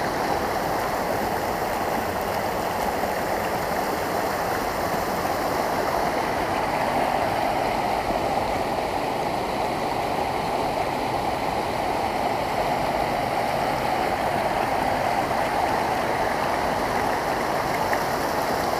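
Shallow rocky brook running steadily over stones and boulders, a continuous even babble of water.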